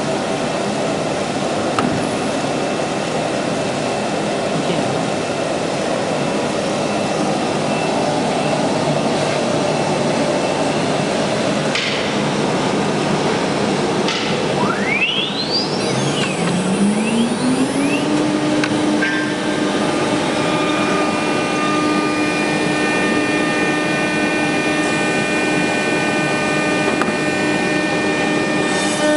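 A CNC router's spindle motor spins up about halfway through, its whine rising in pitch and then holding steady at speed, with a set of higher steady whines over it. Steady machine noise runs underneath.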